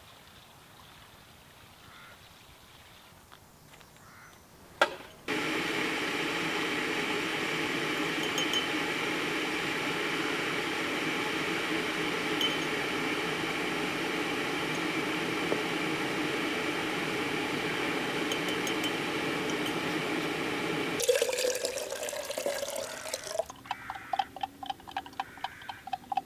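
Water running steadily into a vessel, starting abruptly after a sharp click about five seconds in and cutting off about 21 seconds in. A short rougher splash and a few light clinks follow near the end.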